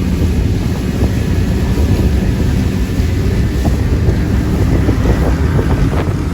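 Powerboat engines running at speed, a loud steady low rumble with wind buffeting the microphone.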